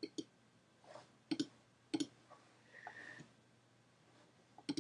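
Computer mouse clicking: a handful of sharp clicks at irregular intervals, some in quick pairs.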